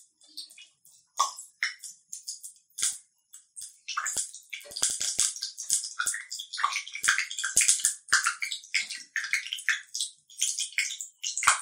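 Fenugreek seeds frying in hot oil in a small steel tempering ladle: scattered pops at first, turning into dense, continuous sizzling and crackling from about four seconds in.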